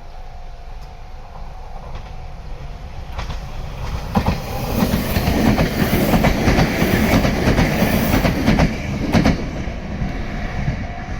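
A Meitetsu electric train passing close by, its wheels clicking over rail joints. It builds about four seconds in, is loudest through the middle and eases off near the end, with a level-crossing warning bell ringing steadily.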